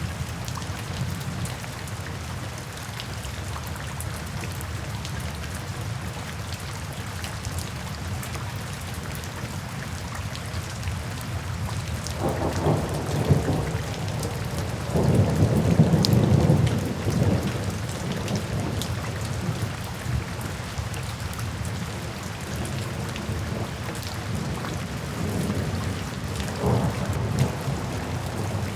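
Steady rain with thunder rumbling, the rumbles swelling twice in the middle and once more faintly near the end.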